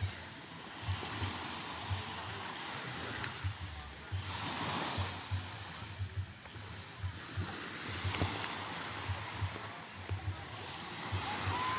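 Small sea waves washing onto the shore, a steady wash that swells about four seconds in and again near the end.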